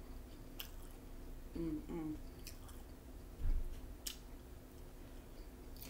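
Close-up chewing of a hard-shell taco: wet mouth sounds with sharp clicks now and then. A short hummed "mm" about a second and a half in, and a low thump about halfway through.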